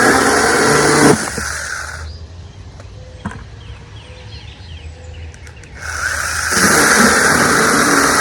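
Worx 20V cordless electric chainsaw cutting through a small branch of degraded red oak. It stops about a second in, leaving a faint hum and a single click, then starts cutting again about six seconds in.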